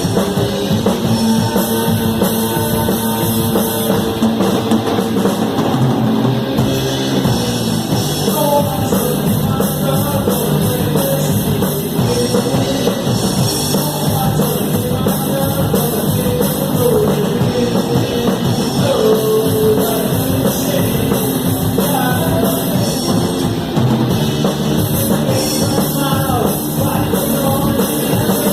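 Rock band playing live, heard from right beside the drum kit, so the drums sit loud and close in the mix. A voice sings over the band from about eight seconds in.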